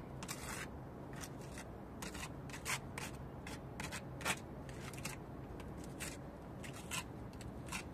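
Small trowel scraping and smoothing wet plaster mortar into holes in a concrete-block wall: a series of short, irregular scrapes and scratches.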